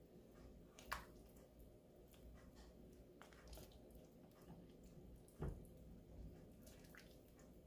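Faint squishing and soft clicks of a spoon stirring thick, sticky purple yam jam (halaya) in a pan as it thickens, with two louder knocks, about a second in and again about five and a half seconds in.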